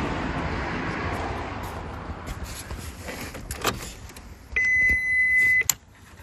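A noisy hiss fades away over the first few seconds, followed by a few sharp clicks. Then a loud, steady, high electronic beep sounds for about a second and cuts off suddenly.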